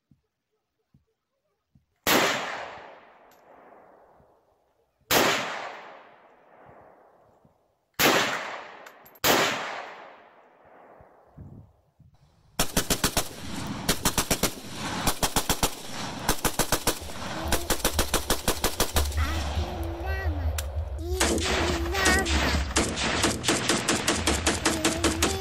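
Gunfire sound effects for a toy-gun play fight: four single gunshots over the first ten seconds, each with a long echoing tail, then rapid machine-gun fire from about halfway on, with a low rumble joining under it later.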